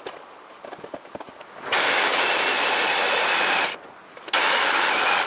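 Cordless drill boring through wooden framing overhead, in two runs: about two seconds, a short pause, then about one more second. Light clicks and knocks come before the first run.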